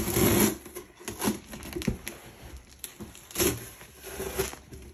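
Packing tape being ripped off a cardboard shipping box, a rasping pull at the start, then cardboard flaps scraping and a few light knocks against the box.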